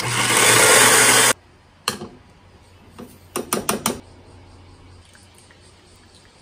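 Electric coffee grinder running for just over a second, a loud grinding noise with a steady motor hum that stops abruptly. A few sharp clicks and clinks follow, a quick run of them about three and a half seconds in.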